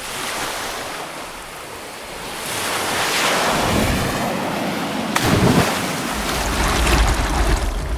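Rushing wind and ocean surf, swelling and easing, with a deeper rumble building in the last couple of seconds.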